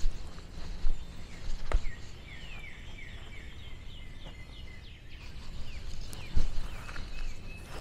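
Songbird calling: a run of quick down-slurred chirps in the middle stretch, over a steady low rumble. A few sharp thumps come near the start and again about six seconds in, and these are the loudest sounds.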